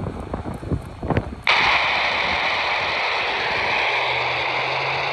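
Wind buffeting the microphone, then about one and a half seconds in a handheld amateur radio breaks into loud, steady static hiss that starts abruptly and holds level.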